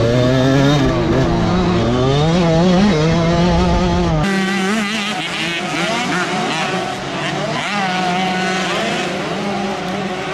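Dirt bike engine revving up and down on a motocross track, heard close with a heavy low rumble. About four seconds in it switches abruptly to dirt bike engines revving hard up a steep hill, heard from trackside, thinner and higher.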